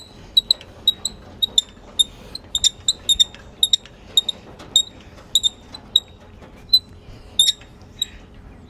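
Irregular short, high-pitched squeaky clicks from the MechMaxx SM32 sawmill's head-height mechanism as the saw head is raised into position, with the blade not yet cutting.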